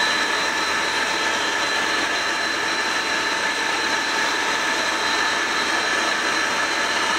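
Arno planetary stand mixer running at high speed (setting 8), a steady high motor whine over a whirring hum, while whipping an egg batter as sugar is spooned in.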